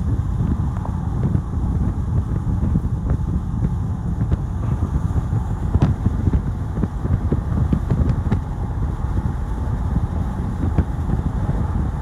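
Wind buffeting the microphone in an open-top convertible at motorway speed, a loud gusting rumble over the car's road and engine noise.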